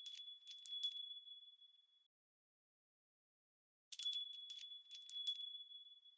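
A short high, tinkling chime effect: a quick run of bell-like strikes with a ringing tone, heard just at the start and repeated about four seconds in, with dead silence between.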